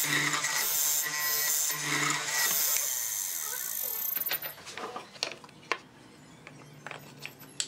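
Hollow-chisel mortiser running, its square chisel plunging into softwood about once a second to cut a mortise. The motor stops about four seconds in, followed by a few sharp knocks as the workpiece is shifted in the clamp.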